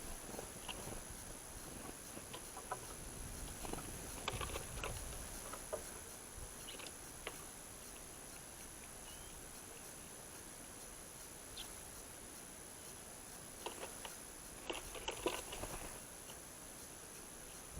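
Birds at a feeder: faint scattered taps and scrabbling from pecking and hopping, busiest about four seconds in and again near the end.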